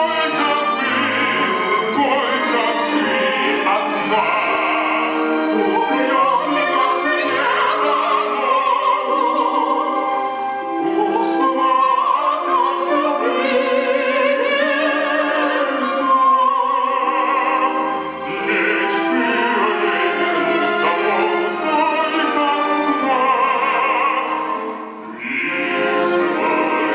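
Operatic singing with vibrato, accompanied by a live orchestra.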